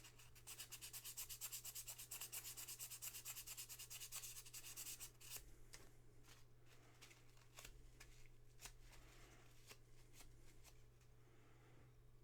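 Parts of a jeep headlight switch being scrubbed clean by hand: quick, even rubbing strokes for about five seconds, then slower, scattered strokes and light clicks that die away.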